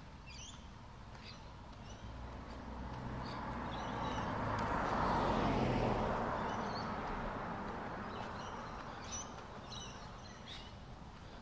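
A car passes on the street, its road noise swelling to a peak about halfway through and then fading away. Small birds chirp now and then throughout.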